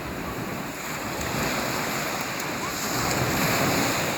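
Sea waves washing at the shore, with wind buffeting the microphone: a steady rushing noise that swells a little in the second half.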